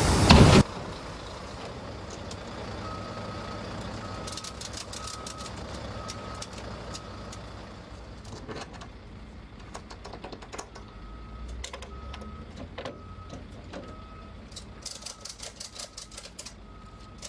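Volvo semi-truck's diesel engine idling under a warning beeper that gives a steady string of short beeps, broken by a pause of a few seconds in the middle, with a couple of bursts of rapid clicking. A loud rushing noise cuts off about half a second in.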